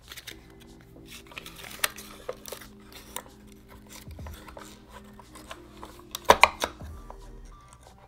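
A small wooden puzzle box being handled and closed: scattered light clicks and taps, then a quick cluster of louder wooden clacks about six seconds in. Soft background music with held notes plays underneath.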